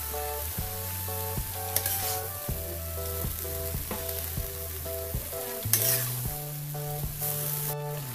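Vegetables sizzling in a metal karahi while a spatula stirs them, scraping and tapping against the pan now and then. Background music with a short repeating melody plays throughout.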